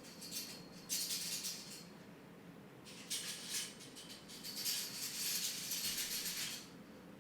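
A dry rattle in two spells: a short one near the start and a longer one of about three and a half seconds from about three seconds in, over a faint steady hum.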